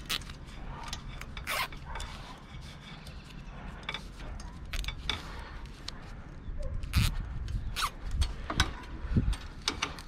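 Gloved hands handling a fiber-optic drop cable and its hanger hardware at a mast clamp, making scattered sharp clicks and rattles with some rubbing. The loudest clicks fall in the second half.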